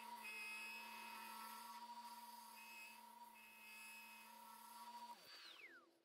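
Rockler Excelsior mini lathe's motor running with a steady whine. About five seconds in it is switched off, and the whine falls in pitch and fades as the lathe spins down.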